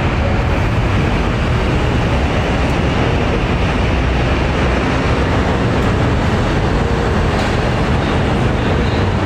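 Steady, loud low rumble of vehicle traffic under an elevated street structure.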